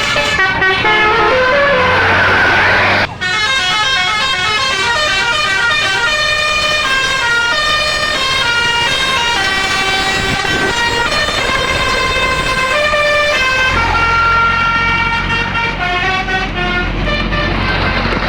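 Indonesian bus 'telolet basuri' musical air horn playing a long melody of stepping notes, briefly cutting out about three seconds in. A low engine drone runs under it near the start and again over the last few seconds.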